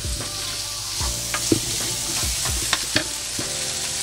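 Cubed chicken with diced carrots, celery and onion sizzling in a skillet, with a spoon scraping and knocking against the pan a few times as it is stirred.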